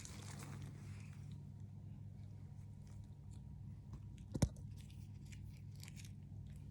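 Quiet room with a steady low hum and scattered faint clicks of small objects being handled, with one sharper tap about four seconds in.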